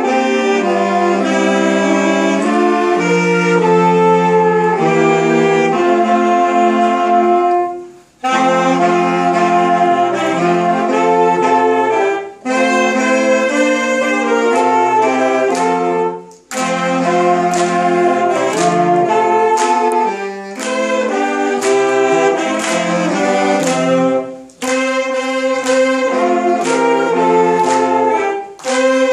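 Saxophone ensemble playing a Christmas carol medley, several parts sounding together in harmony. The melody comes in sustained phrases broken by brief pauses every few seconds.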